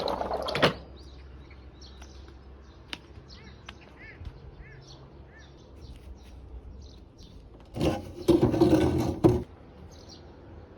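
Faint short bird chirps over quiet outdoor background noise, broken by a loud noisy burst lasting about a second and a half near the end, and another brief loud burst at the very start.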